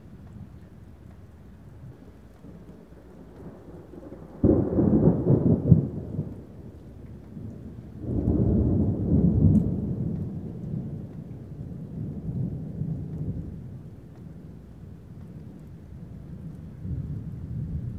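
Thunder: a clap that starts suddenly about four and a half seconds in, then a second, longer peal from about eight seconds that rumbles away over several seconds, over a steady low rumble.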